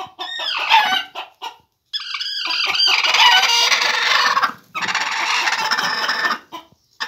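Broody hen squawking and growling in loud, drawn-out bouts as a hand reaches under her on the nest, the protest of a sitting hen guarding what lies beneath her.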